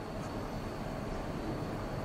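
Steady background hum and hiss of a car show hall, with a faint high tone and no distinct events.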